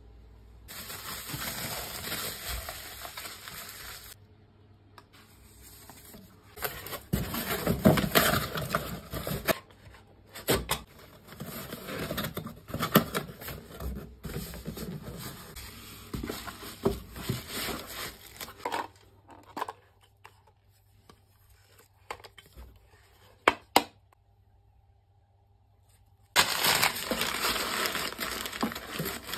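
Paper packing sounds: water-activated gummed paper tape rustling and rubbing as it is smoothed onto a cardboard box, with scattered knocks and taps. After a quiet pause of several seconds, crumpled kraft packing paper crinkles loudly near the end.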